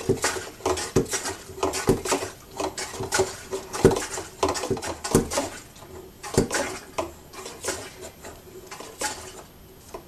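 Homemade plunger washer, a rubber plunger on a long stick through a PVC fitting in a 5-gallon bucket lid, being pumped up and down through wash water and laundry. It knocks and clatters about once a stroke, roughly once a second, and the strokes grow weaker near the end. It is agitating the load, forcing water and detergent through the clothes.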